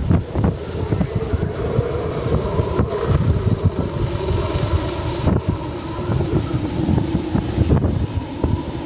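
Hurricane eyewall winds gusting in rapid, irregular bursts, buffeting the microphone with a low rumble, over a steady hiss of wind. A faint steady hum runs underneath.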